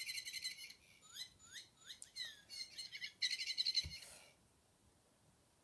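Chirping toy bird letting out rapid, repeated tweets and trills that stop about four seconds in. A soft thump comes just before the chirping ends.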